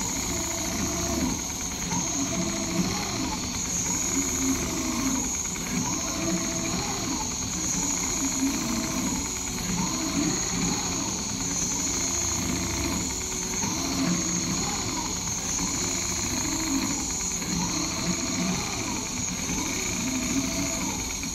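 Large-format CNC sewing machine stitching a zigzag seam through heavy material, its needle running steadily. A constant high whine sits over lower drive-motor tones that rise and fall in pitch again and again as the sewing head moves back and forth across the frame.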